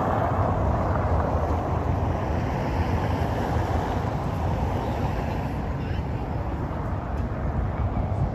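Street ambience: road traffic as a steady rumble, with people's voices mixed in.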